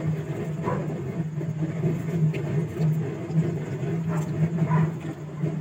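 A steady low mechanical drone, with a few faint clicks over it.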